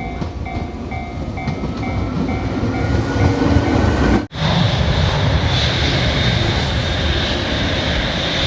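Train running, with a repeating beeping signal and a slowly rising motor whine through the first half. About halfway through it cuts suddenly to louder, denser running noise with a steady high tone.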